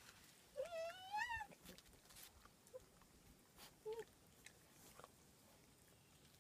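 German Shepherd puppy whining: one long, wavering whine that rises in pitch about half a second in, then a short whimper about four seconds in, with faint clicks of paws and teeth on concrete.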